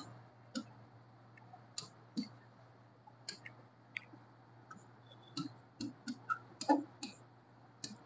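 Marker pen tapping and clicking against a writing board as handwriting is put down: faint, irregular clicks, coming more often in the second half, over a faint steady low hum.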